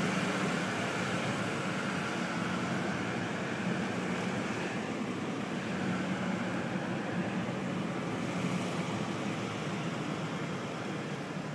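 Steady engine and road noise of a vehicle being driven, heard from inside its cab, with a low hum under a broad even rush.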